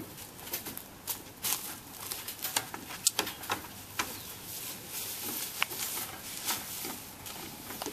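Irregular footsteps and scuffling on wood-chip ground and on the steps of a playground structure, a string of short crunches and taps.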